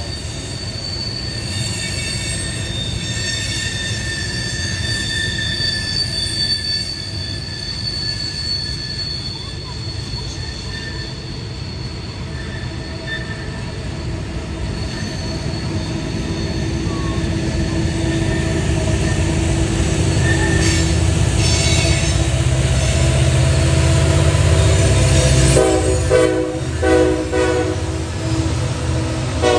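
Norfolk Southern freight train rolling around a tight curve, its car wheels squealing against the rail in several steady high tones. The deep diesel rumble of its locomotives builds in the second half as they come by.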